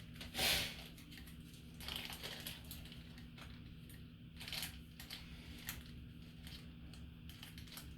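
Faint handling noises of small parts at a workbench: a short rustling scrape about half a second in, then scattered light clicks and taps, over a steady low hum.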